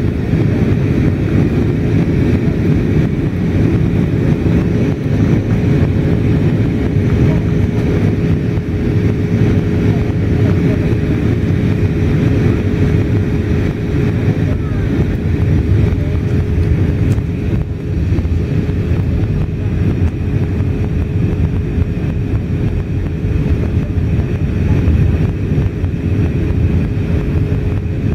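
Airbus A320 cabin noise on approach: the steady roar of the engines and airflow heard from a window seat, with a thin humming tone held at one pitch throughout.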